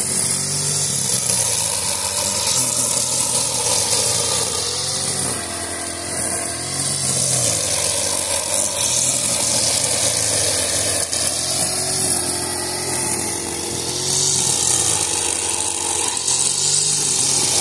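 Honda four-stroke petrol brushcutter running hard, its engine note dipping and rising a little as the cutting head sweeps through grass, with a steady high hiss from the cutting.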